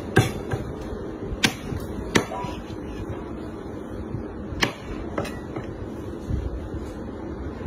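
Steel cleaver chopping cooked meat on a thick round wooden chopping block: about five sharp, irregularly spaced chops, with a few lighter knocks near the end.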